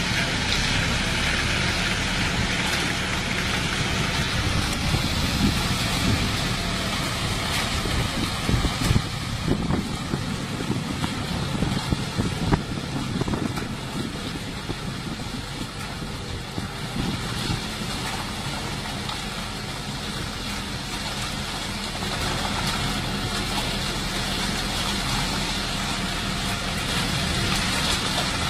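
Self-loading concrete mixer's diesel engine running steadily, with irregular louder clatter for a few seconds around the middle.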